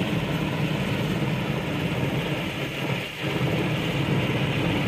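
UH-60 Black Hawk helicopter hovering overhead: steady rotor and turbine noise, briefly dipping about three seconds in.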